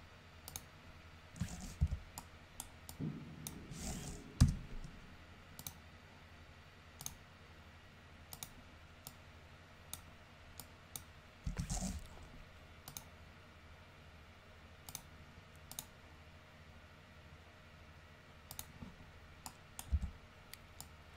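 Computer mouse clicks, irregular and scattered, with a few duller thumps among them.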